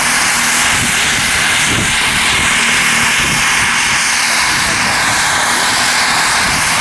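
Radio-controlled Rotortec LongRanger scale model helicopter flying low: a steady, loud high-pitched whine of its engine and rotors.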